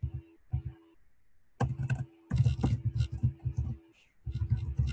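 Computer keyboard being typed on. There are a couple of single keystrokes at the start, then fast runs of key clicks from about a second and a half in, a short pause, and another run near the end.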